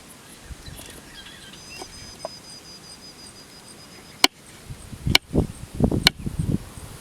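Three sharp clicks or knocks about a second apart in the second half, mixed with low handling thumps and rustling, over outdoor ambience with a thin, high, steady call in the first half.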